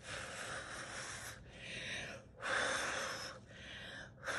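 A person blowing hard through the mouth onto wet acrylic pour paint to push it across the canvas, in about three long blows with short pauses between. The effort is heavy; she says afterwards it takes a lot to blow this.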